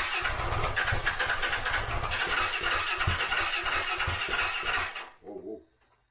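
KTM 690 single-cylinder engine, freshly fitted with a new top end, being started: uneven low thumps under a dense mechanical clatter, cutting off about five seconds in, followed by a brief fainter sound. The cam timing was set one tooth off, which made it hard to start.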